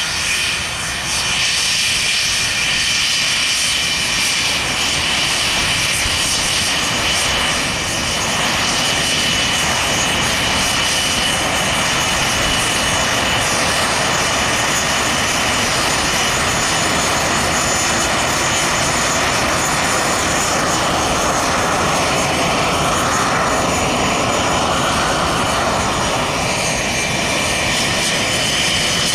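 Twin Rolls-Royce Avon turbojets of an English Electric Lightning running at taxi power: a steady jet rush with high-pitched whine tones over it. The rushing noise swells somewhat a little after twenty seconds in.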